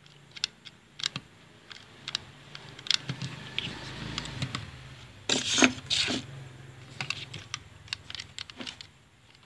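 Scattered light clicks and taps of plastic parts being handled: a washing machine door lock switch and its control board. A louder scraping rustle comes a little past halfway, and a low steady hum runs under the middle part.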